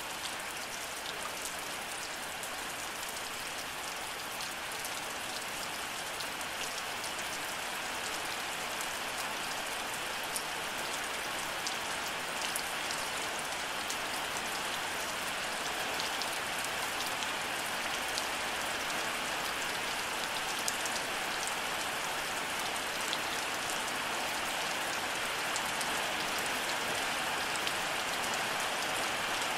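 Steady rain falling: a dense, even hiss with scattered sharp drop ticks, growing slightly louder.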